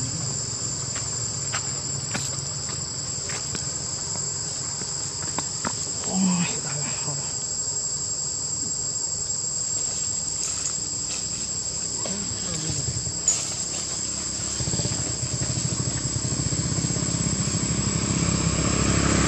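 Steady high-pitched drone of insects, a constant shrill chorus with scattered faint clicks. A low rumble builds over the last few seconds.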